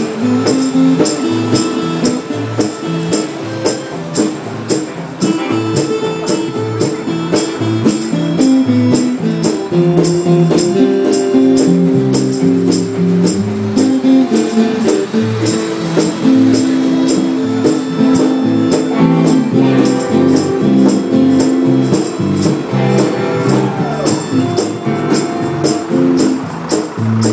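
Background music: a song with a steady beat of short, high percussion hits over a stepping low melody.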